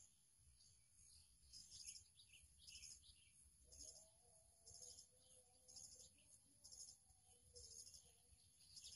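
Faint outdoor wildlife ambience: short high chirps repeated roughly once a second over a steady high-pitched hum, with a faint low steady tone joining about four seconds in.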